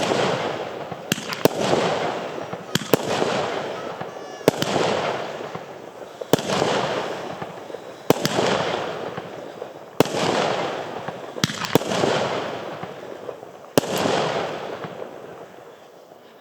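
Argento Zirkonia category F2 firework battery firing shot after shot. Each shot is a sharp bang followed by a hissing rush that fades over a second or so, about a dozen shots at one every one and a half to two seconds, dying away near the end.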